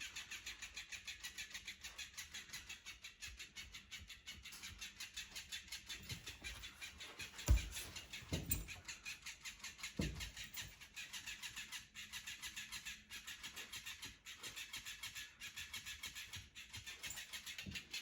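Electric flapping-fish cat toy flapping its tail, a fast even pulsing of about six beats a second, with three dull thumps in the middle.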